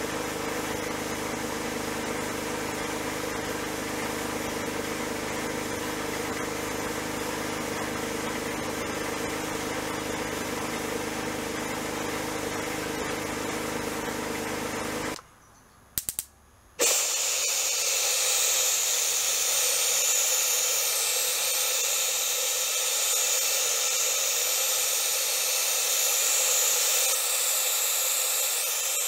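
Sandblaster running in a blast cabinet against the lantern's perforated metal top: a steady hiss with a machine hum under it. About halfway through it cuts off, and after a click or two a spray gun starts a steady high hiss as it paints the part white.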